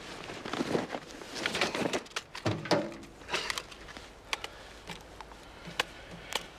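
Rummaging and rustling through a pack, then several sharp clicks in the second half as a small handheld plastic device is handled.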